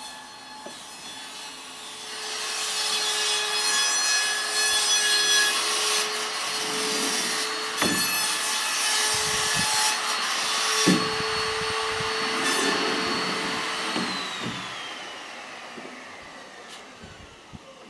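Frameless glass curtain panels rolling and rubbing along their metal track as they are slid open, one long continuous run with a faint steady whine through it. Two knocks around the middle as panels meet, and the run fades away toward the end.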